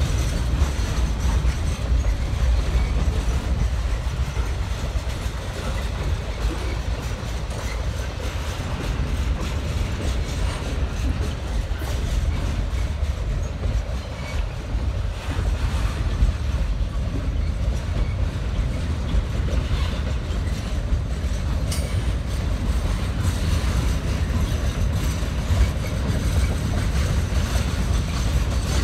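Triple Crown RoadRailer trailers of a freight train rolling past on their rail bogies: a steady rumble of steel wheels on the track, with occasional clicks from the wheels at rail joints.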